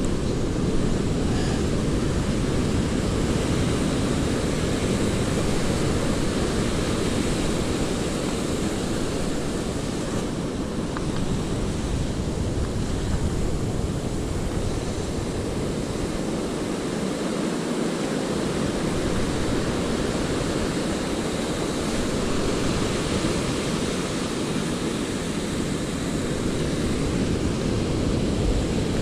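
Steady rush of surf breaking and washing up a sandy beach, with wind on the microphone.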